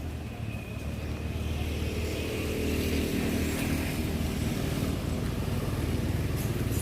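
A motor vehicle's engine running, growing louder over the first two or three seconds and then holding steady.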